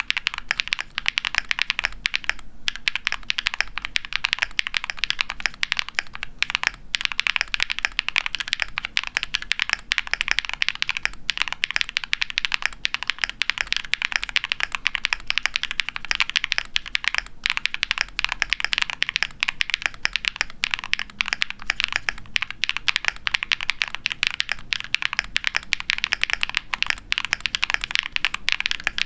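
Fast, continuous typing on a KBDfans Tofu60 mechanical keyboard with factory-lubed Huano Cherry Blossom linear switches on a POM plate, PBT keycaps and foam dampening: a dense run of quick, high-pitched clacks with only a few brief pauses.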